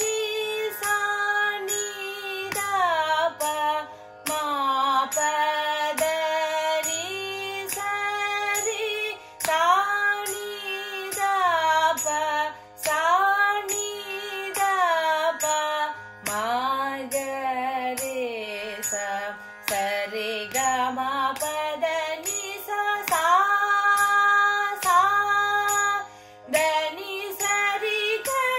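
Woman singing a Carnatic melsthayi varisai exercise in swara syllables (sa ri ga ma pa da ni), reaching up into the higher octave, over a steady low drone. Sharp clicks of her hand beats keep the tala throughout.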